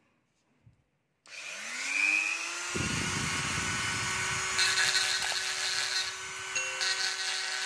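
Nankai mini grinder (rotary tool) switched on about a second in, its motor whine rising as it spins up and then running steadily. From about three seconds in its small bit grinds scratchily against a stainless steel spoon, engraving its handle.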